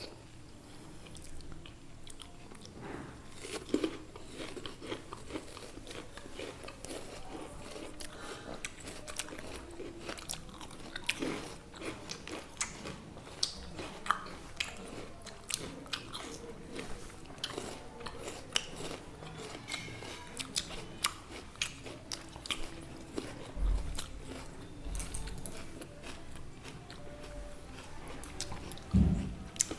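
Close-up chewing and crunching of chal-kola-batasa prasad (rice, banana and crisp sugar drops), with many small crunchy clicks and a few low thumps near the end.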